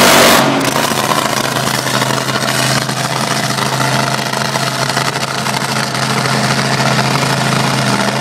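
A top fuel dragster's supercharged nitromethane V8 drops from a loud full-throttle blast to a steady idle about half a second in.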